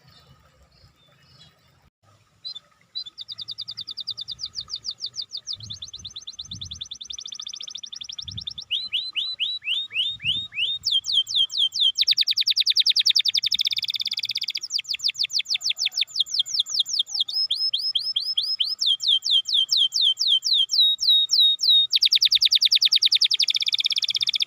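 Domestic canary singing a long song of rapid repeated trills, switching to a new trill every second or two, starting a couple of seconds in.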